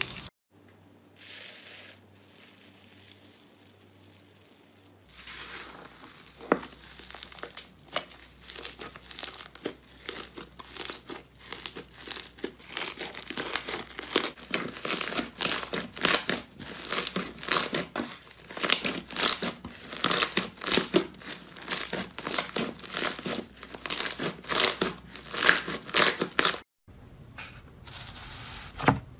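Hands squeezing and kneading slime with foam beads, a dense run of sticky crackles and pops that starts about five seconds in after a near-quiet stretch with a faint hum. Near the end it cuts to a softer rustle of fingers working a grainy slime.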